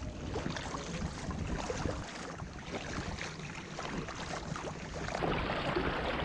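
Paddle blades dipping and splashing in the water beside an inflatable packraft, as a steady run of small splashes, with wind buffeting the microphone.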